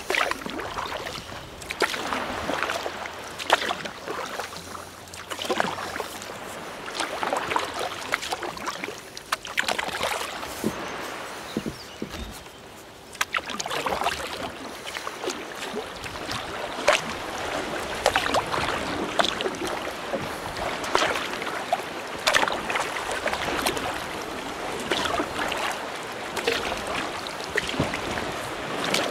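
Kayak paddle strokes in the sea: water splashing and dripping with each stroke, one every second or so, with a brief lull about twelve seconds in.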